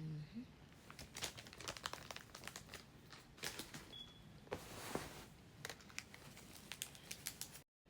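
Close-up crunching and chewing of lime-flavoured cornstarch chunks: many small sharp crackles and clicks, with a softer rustling stretch near the middle.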